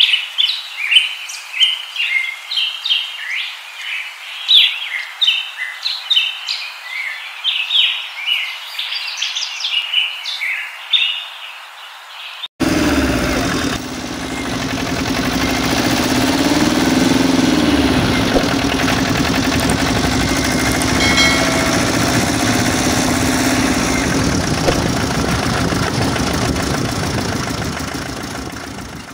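Birds chirping rapidly for about twelve seconds, then an abrupt switch to the steady running noise of a toy mini pickup truck's motor, which rises and falls in pitch briefly about halfway through.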